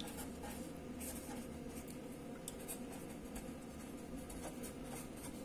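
Felt-tip pen writing on paper: soft, irregular scratching strokes of handwriting.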